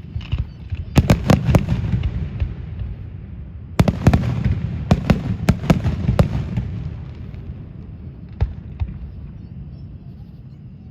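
Fireworks display, with shells bursting in quick bangs over a continuous low rumble. There is a cluster of bangs about a second in, a longer volley from about four seconds in, and two single bangs near the end.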